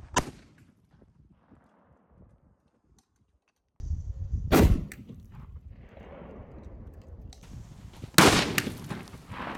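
Firecracker blasts at an aerosol spray-paint can: three loud, sharp bangs, one right at the start, one about four and a half seconds in and one about eight seconds in. Each is followed by a rumbling, fading tail. A brief hiss comes just before the second bang.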